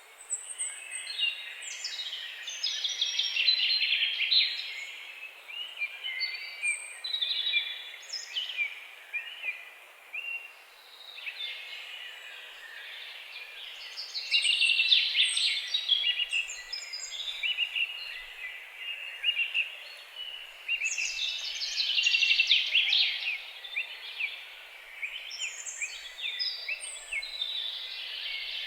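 Several songbirds singing at once in a forest chorus: overlapping chirps, trills and quick downward whistles, with busier bursts of song every several seconds over a faint steady hiss.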